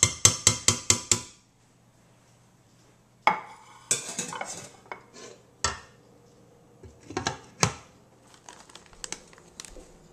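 A metal slotted spoon tapped quickly against a stainless steel pan, about seven sharp clinks in the first second, followed by scattered knocks and clatter of utensils and dishes.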